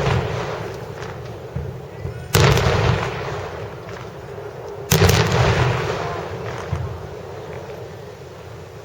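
Large fireworks shells bursting: two heavy booms about two and a half seconds apart, each followed by a long rolling rumble that fades slowly, with a few smaller pops between.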